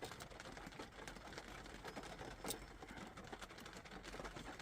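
Small flat-tip screwdriver working around the plastic bezel of a Land Rover Discovery Sport's start/stop button, prying it out: faint irregular plastic clicks and scrapes, with one sharper click about two and a half seconds in.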